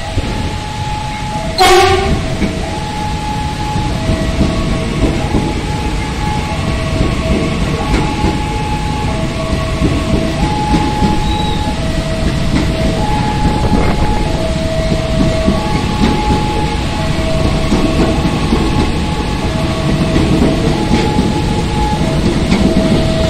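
A passenger train passing close by, its wheels rumbling on the rails, with a short horn blast about two seconds in. A level-crossing alarm sounds throughout, alternating between a higher and a lower tone about once a second.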